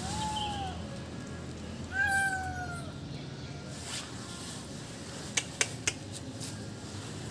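Kitten meowing twice, short high-pitched calls that fall in pitch at the end, the second one louder. Three sharp clicks follow a little past the middle.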